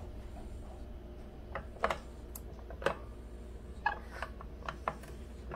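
Light handling clicks and taps from an electric sandwich maker as a sandwich is set into it and pressed down, about eight short knocks scattered over the last few seconds, over a steady low hum.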